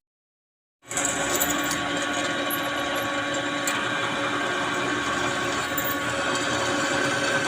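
A small electric power tool running steadily, starting about a second in.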